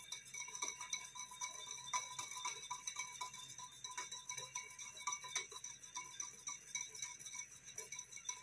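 Metal wire whisk beating a sauce in a ceramic bowl: a quick, uneven run of light clinks as the wires strike the bowl.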